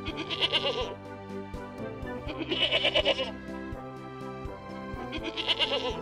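A goat bleating three times, each a wavering call under a second long, about two and a half seconds apart, over background music with a steady beat.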